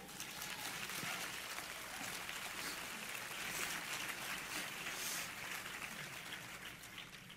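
Audience applauding, a steady patter of many hand claps that fades near the end.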